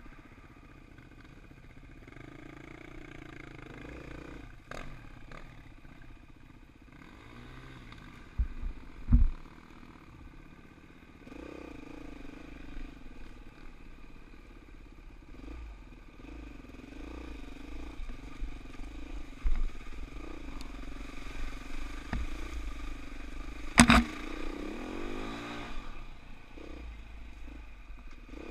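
Dirt bike engine running and revving up and down while riding a rough trail, with a few sharp thumps and clatter, the loudest about nine and twenty-four seconds in.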